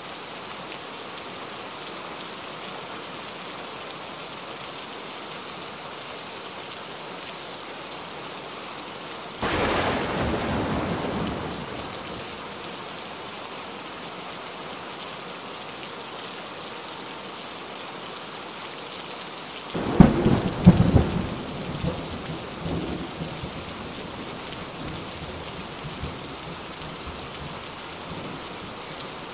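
Steady rain falling, with thunder twice. The first peal starts suddenly about nine seconds in and dies away over a couple of seconds. The second, louder one comes about twenty seconds in as a run of sharp cracks, then rolls on low for a few seconds.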